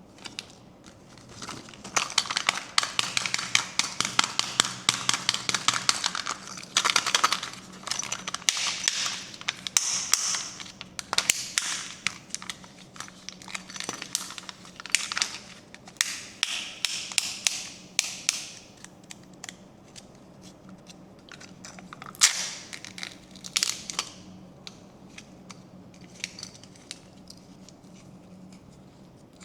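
Crinkling and crackling of a candy or toy wrapper being handled and crumpled close to the microphone: a dense run of crackles through most of the first two thirds, then a few separate sharp cracks.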